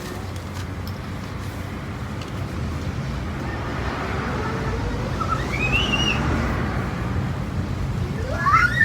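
Road traffic: a steady low rumble that swells as a vehicle passes about halfway through, with a brief high rising call near the end.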